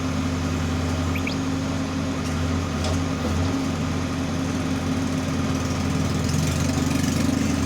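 Diesel engine of a Case 570T backhoe loader running steadily at an even speed.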